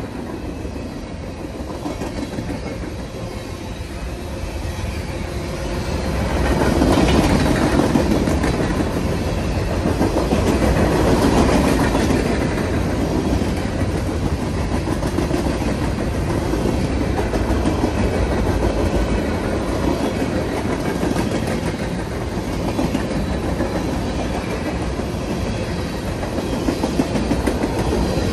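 Freight cars of a long mixed freight train rolling past: a steady noise of steel wheels on rail with clickety-clack, growing louder for several seconds about a quarter of the way in, then holding steady.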